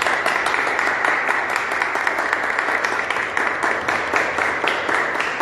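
Audience applauding: many hands clapping steadily and densely.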